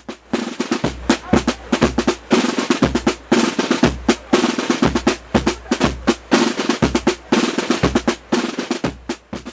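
Drum-driven intro music: fast drum hits and rolls over a deep bass that pulses about once a second.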